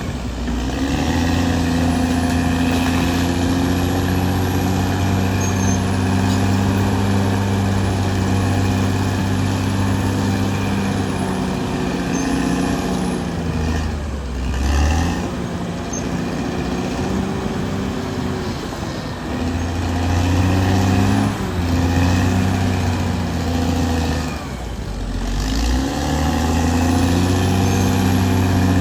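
Caterpillar D6R XL bulldozer's diesel engine running steadily, its pitch dipping and picking up again a few times as the load changes.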